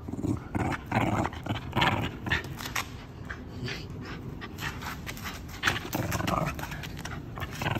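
Male Shiba Inu growling a rolling 'grrrr' in bursts while being stroked on the head: a lively, good-natured grumble. It is loudest in the first few seconds and comes again a little after the middle.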